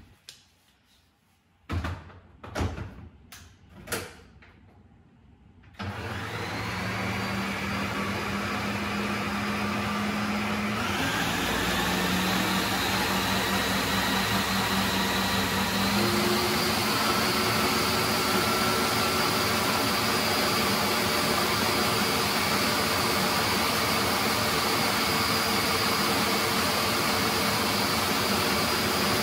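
Food processor motor starting about six seconds in, after a few clicks, then running steadily as it grinds rolled oats into flour; its note shifts a couple of times.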